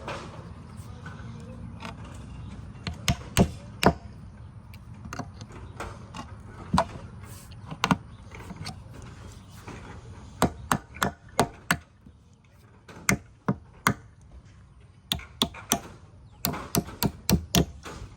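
Hammer knocking at a bent nail in a wooden board to work it out: a series of sharp, irregular knocks, some coming in quick runs of several blows.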